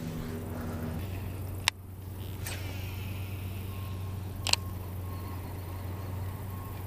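Steady low drone of construction machinery engines, with two sharp clicks from a baitcasting reel being worked for a cast, about one and a half and four and a half seconds in. A faint on-off beeping joins from about four seconds in.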